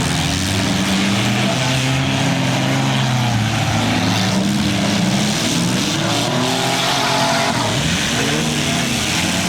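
Several small-car engines revving up and down at once, their pitches rising and falling over one another, over a steady noisy wash.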